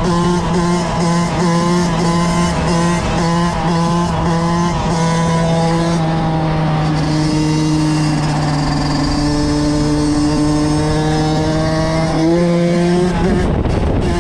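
Kawasaki KX85 two-stroke engine running at high, fairly steady revs, with the pitch changing near the end.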